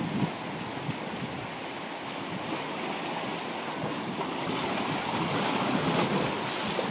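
Ocean surf washing against a rocky shoreline: a steady rush of water that swells a little louder in the second half.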